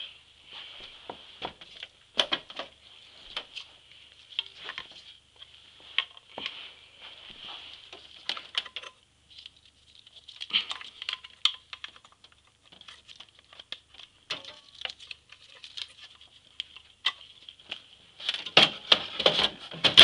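Sheet-metal hard-drive caddy being handled and fitted into a Power Mac G4's case: irregular clicks, taps and scrapes of metal on metal, growing busier and louder near the end.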